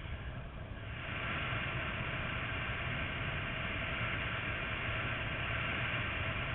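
Wind rushing over the microphone of a GoPro camera in paraglider flight, a steady rush that grows louder about a second in.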